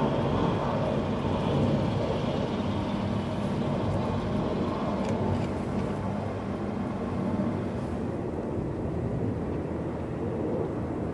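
Steady low outdoor rumble with a hiss over it, the hiss easing off about eight seconds in.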